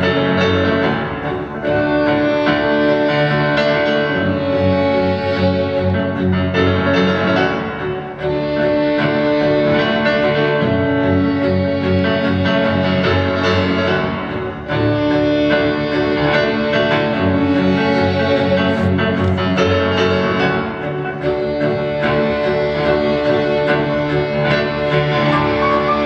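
Grand piano and cello playing together live. The piano repeats a short pattern beneath long bowed notes.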